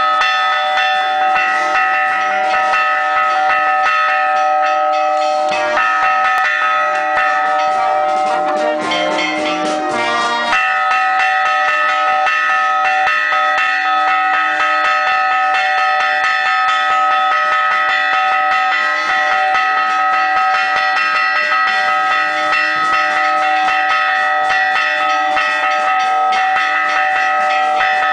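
Bronze church bell ringing continuously from right beside it in the belfry, struck in quick repeated strokes so that the ringing never dies away. The ringing turns rougher and more jumbled for a few seconds, about five to ten seconds in.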